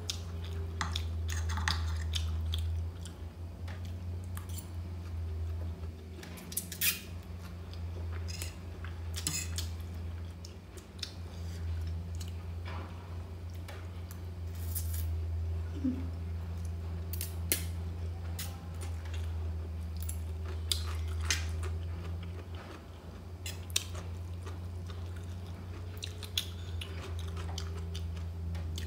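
Eating noodles with a fork: scattered sharp clicks and scrapes of the fork on the plate, with chewing, over a steady low hum.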